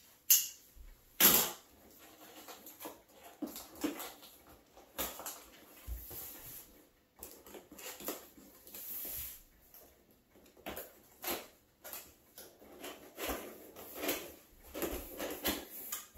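Cardboard rifle box being opened by hand: a knife slitting the packing tape, tape ripping and cardboard flaps scraping and rustling in a series of short irregular scrapes and tears. The two loudest rips come in the first second and a half.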